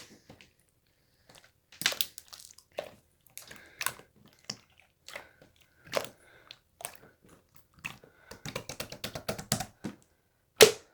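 Slime being squeezed and pressed by hand, giving separate sharp clicks and pops about once a second, with a quick run of small crackling clicks near the end and one louder pop just after.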